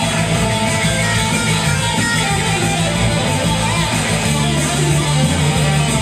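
Electric guitar playing a surf-rock instrumental, a continuous run of picked notes with sustained low notes underneath.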